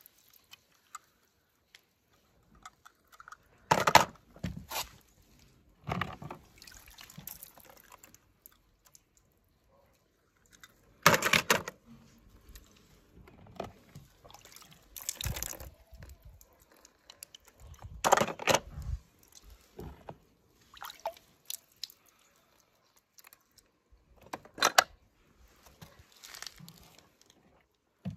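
Water splashing and sloshing in a plastic tub as a hand dips a toy car in and out, in short bursts a few seconds apart.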